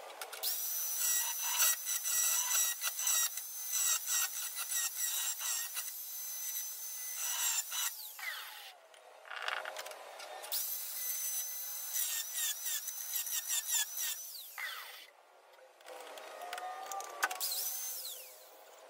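A spinning cutoff-disc power tool cuts through the rusty sheet steel of the car body's C-pillar with a high whine and chatter. It runs in two long spells, each ending in a falling whine as the disc spins down, then a shorter, lighter spell near the end.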